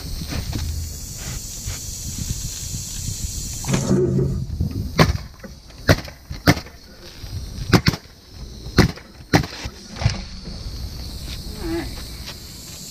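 Pneumatic coil roofing nailer driving nails through asphalt shingles: about eight sharp shots at uneven spacing, starting about five seconds in.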